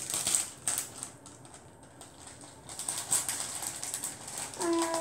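Plastic bag of polystyrene foam beads crinkling, with the loose beads rattling inside in quick small clicks as the bag is handled and tipped to pour. It goes quieter for a stretch after the first second, then picks up again.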